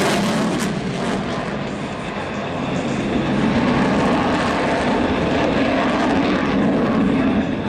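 An airplane's engine running steadily as the plane flies by, dipping about two seconds in and then growing louder from about three seconds.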